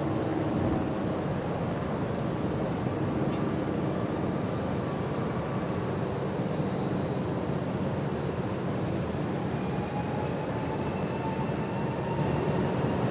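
Outdoor ambience of a steady low traffic rumble, with a faint distant siren tone slowly rising in pitch during the last few seconds.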